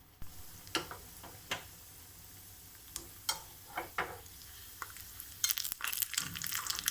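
Chopped cashew pieces sizzling as they fry in hot ghee in a pan, with a spoon clicking and scraping against the pan as they are stirred. The sizzle starts suddenly near the start and grows denser and louder about five seconds in.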